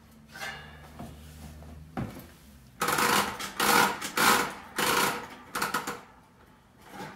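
Metal scraping and rattling from the kerosene heater's chimney and thumbscrews as it is put back together: a click about two seconds in, then a run of loud scrapes lasting about three seconds.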